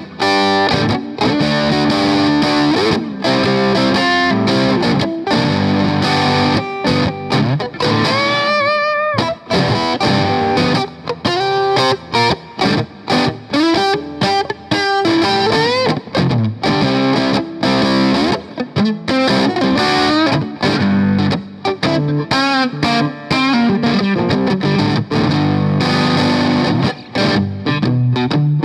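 Electric guitar played through a Boss BD-2 Blues Driver overdrive pedal, giving a distorted, blues-rock tone. It plays a continuous run of notes and licks, with string bends and wavering vibrato, strongest about a third of the way in.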